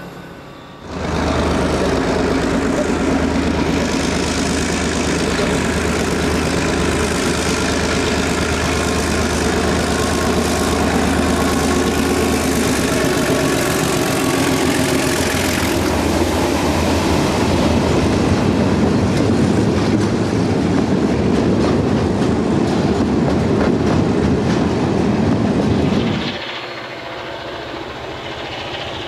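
Diesel-electric locomotives working hard with a train: a steady heavy engine drone with wheel-on-rail clatter. It starts about a second in and cuts off sharply near the end.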